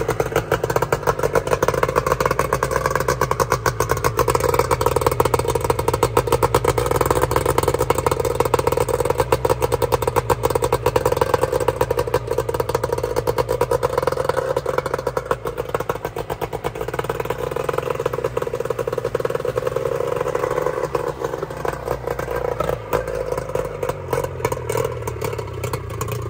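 Nissan 40 hp two-stroke outboard motor running out of the water on a garden-hose supply, with a fast, steady exhaust beat that eases a little quieter in the last few seconds. No cooling water comes out while it runs, which the owner wonders is a sure sign of a bad water pump impeller.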